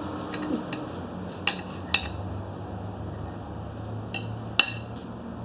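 A knife clinking against a plate: a handful of short, sharp clinks at irregular intervals.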